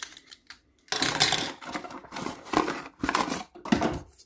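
Small plastic toy pieces and packaging handled: several bursts of rustling and clicking from about a second in.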